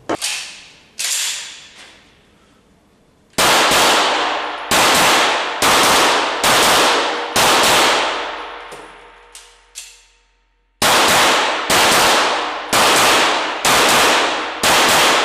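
Walther Q5 Match 9 mm pistol fired in an indoor range: two strings of five shots, about one a second, each shot ringing on after the bang, with a pause of about three seconds between the strings. Two lighter bangs come in the first second.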